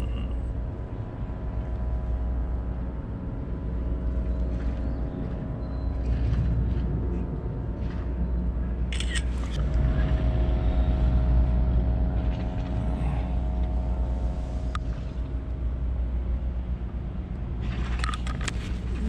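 Steady low engine drone with several constant hum tones, a little louder in the middle. A few short clicks and rustles of handling come about halfway through and again near the end.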